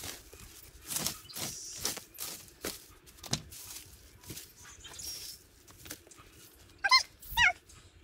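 Dry dead leaves and yard debris rustling and crunching in irregular strokes as they are handled and pushed into a paper yard-waste bag. Near the end, two short high-pitched yelps, each falling in pitch, are the loudest sounds.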